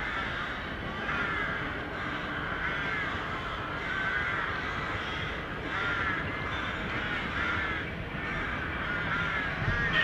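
A flock of birds cawing, many short calls overlapping and repeating, over a steady background rush.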